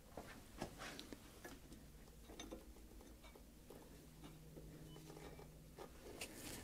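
Near silence: room tone with a few faint clicks and a faint steady hum for a couple of seconds in the middle.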